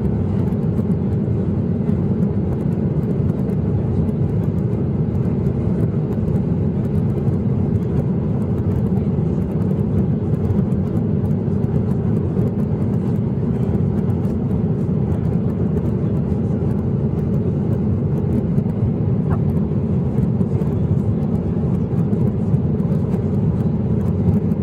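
Inside the cabin of a Boeing 737-800 climbing out after takeoff: its CFM56 engines at climb power and the rush of air over the fuselage. It is a steady low rumble that holds an even level throughout.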